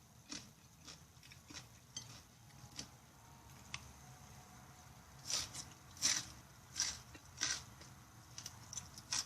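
Close-up eating sounds: food being chewed with sharp, wet mouth clicks, a few scattered at first, then a louder, steadier run of about one every 0.7 s past the middle.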